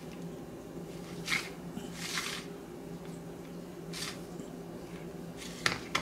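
A charging cable's plug fumbled against a phone on a stone countertop while being plugged in: a few soft scuffs, then a sharp click near the end.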